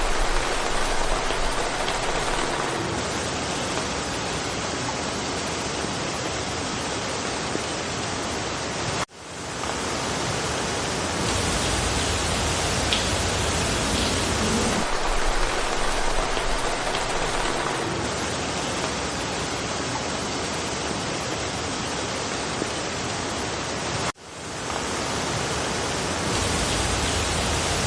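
Steady rain falling through forest foliage, an even hiss. It drops out for an instant twice, about nine seconds and twenty-four seconds in, and swells back over about a second each time.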